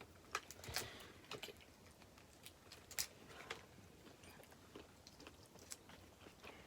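Faint eating sounds from a seafood boil: chewing with scattered short mouth smacks and clicks, the sharpest about three seconds in.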